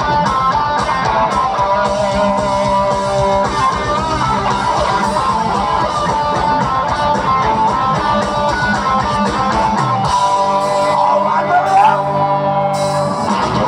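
Live rock band playing loud through a large outdoor festival PA: guitar chords over a driving drum beat. About ten seconds in, the drums drop out and sustained chords ring on.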